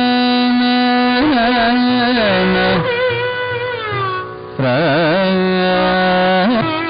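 Carnatic classical music: a single melodic line of long held notes broken by quick wavering ornaments, with a short dip a little after four seconds in.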